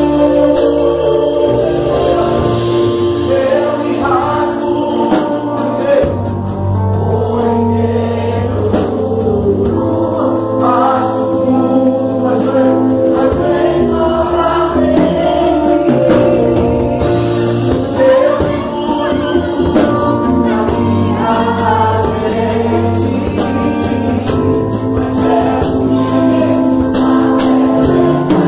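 A live gospel worship song in Portuguese: a man sings lead through a microphone and PA over instrumental accompaniment with sustained bass notes, while the congregation sings along.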